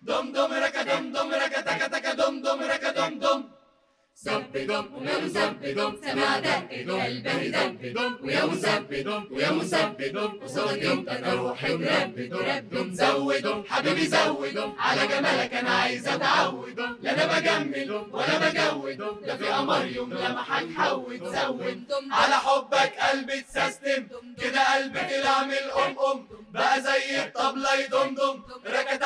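Mixed-voice a cappella group singing in parts, the voices taking the place of instruments. The singing breaks off briefly about four seconds in, then resumes.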